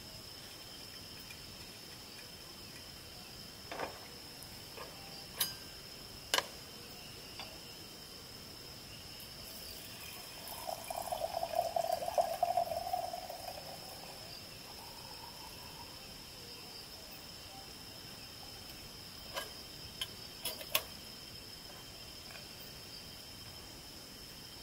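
Liquid poured from a bottle into a cup for about three seconds. A few light clinks and knocks of handled utensils come before and after it, over steady high insect chirring.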